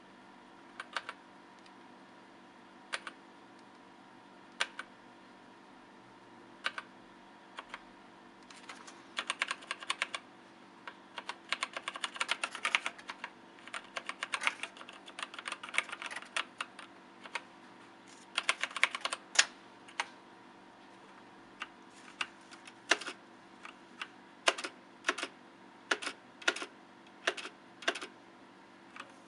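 Mechanical keyboard with brown switches being typed on: scattered single keystrokes at first, quick runs of typing through the middle, then single key presses again near the end. A faint steady hum sits underneath.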